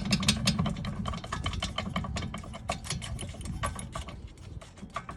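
A small motor running with a dense, rapid metallic rattling and clicking, as the rear brake caliper bolts are loosened.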